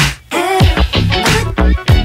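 Background music with a steady funky beat and deep, falling bass hits.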